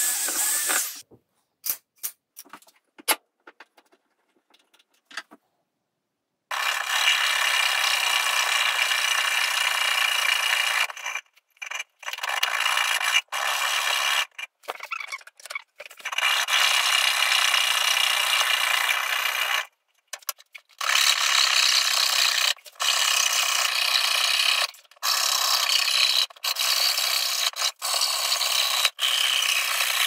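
A hand fretsaw cutting shapes out of a wooden board, a steady rasping in long stretches broken by short gaps. It opens with a cordless drill finishing a hole for about a second, then scattered clicks and knocks before the sawing starts.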